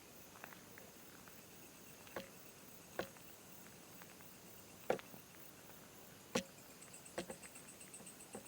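Scattered sharp clicks and snaps, about five of them a second or so apart, over faint high insect chirping that becomes more noticeable near the end.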